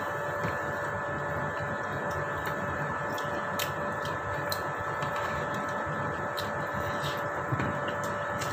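A steady mechanical hum with a few fixed whining tones, like a running household appliance, with faint small clicks now and then.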